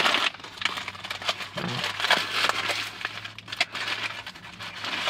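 Food packaging crinkling and rustling as it is handled, with scattered small crackles, over a faint steady low hum.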